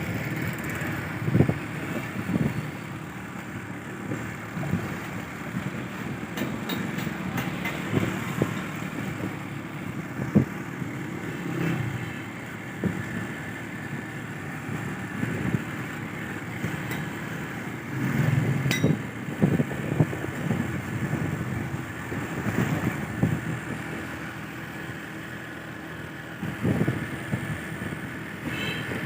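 City road traffic heard from a moving vehicle: a steady engine and road rumble with wind on the microphone and occasional short thumps.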